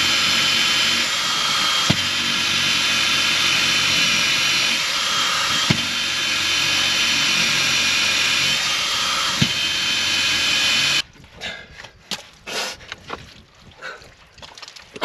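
Power drill running steadily, boring through the wooden hull planking from the outside, with a constant whine and a few short clicks. It cuts off suddenly about eleven seconds in, leaving only quieter scuffing in wet mud.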